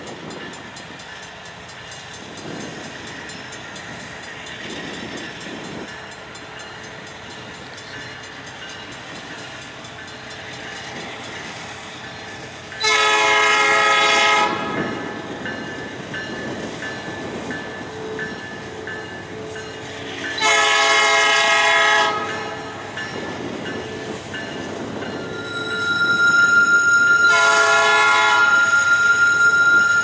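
Approaching locomotive's air horn sounding for a grade crossing: two long blasts about seven seconds apart, then a third, longer sounding near the end, over the steady rumble of the oncoming train.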